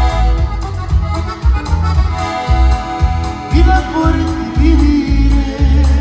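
Conjunto band playing live: accordion carrying the melody over a pulsing electric bass line and drum kit.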